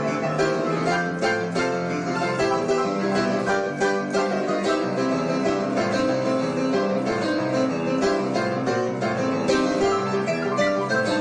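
Instrumental music with quickly plucked string notes, like guitar or banjo, playing steadily over a full chordal backing.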